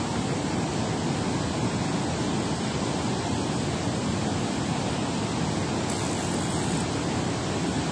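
Steady rushing of water pouring through a dam spillway into turbulent tailwater, an even, unbroken noise heaviest in the low range.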